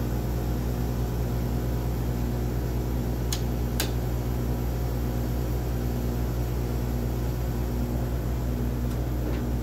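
Steady low machine hum with a low tone in it pulsing on and off a little faster than once a second. About three and a half seconds in come two sharp clicks close together as the hinged pump panel of the Siemens Dimension EXL 200 analyzer is swung back and latched into place.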